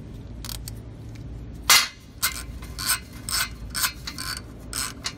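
Metal clicks and clinks of a wrench working a stud-driver socket as a new exhaust manifold stud is screwed into the cylinder head: one sharp clink a little past a second in, then lighter clicks about two a second.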